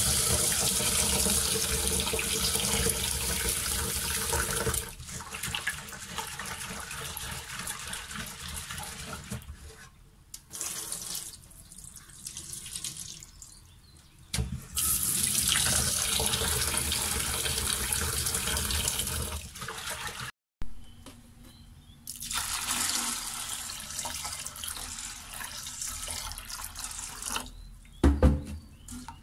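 Tap water running into a stainless steel bowl of split mung beans being rinsed in a steel sink, and the cloudy rinse water poured off into the sink. The water comes in three long loud spells with quieter stretches between. There is a short knock near the end.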